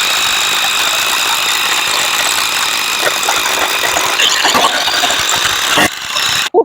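A small motor running steadily with a high whine, then cutting off abruptly near the end.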